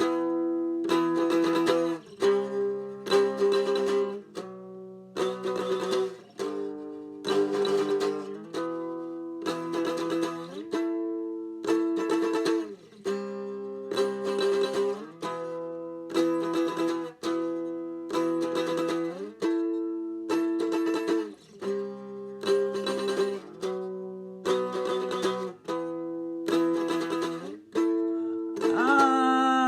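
Instrumental passage of strummed chords on an acoustic plucked string instrument: a repeating chord pattern struck about once a second, each chord ringing out and fading before the next.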